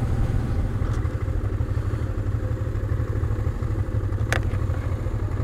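Honda Transalp 650's V-twin engine running at low revs with a steady rumble. A single sharp click comes about four seconds in.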